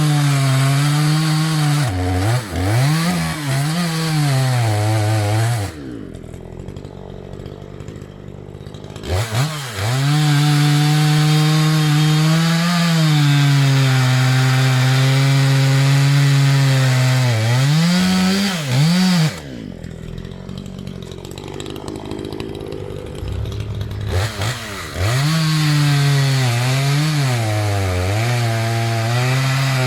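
Maruyama MCV5100S two-stroke chainsaw running at high revs in cuts, its pitch dipping and recovering under load. Twice, at about 6 s and 19 s in, it falls back to a quiet idle for a few seconds, then revs up again.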